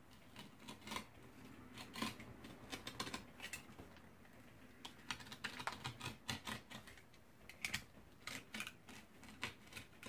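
Hobby knife cutting thin marine carpet around a drilled latch hole: a quiet series of irregular small clicks and scrapes.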